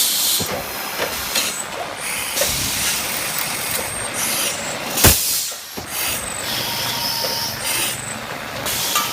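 Servo dual-spindle drilling and tapping machine running, with repeated short hisses of compressed air and a sharp clack about five seconds in.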